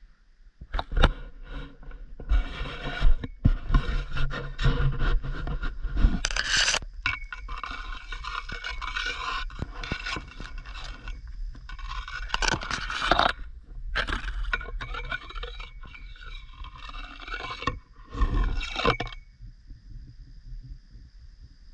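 Grass stems and leafy branches brushing and scraping against a GoPro camera as it is pushed through shoreline vegetation, with irregular handling knocks. The scraping stops near the end, once the camera is set down.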